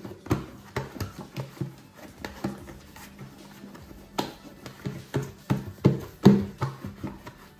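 Pizza dough being kneaded by hand in a plastic bowl: irregular thuds and slaps as the dough is pressed and folded against the bowl, with background music.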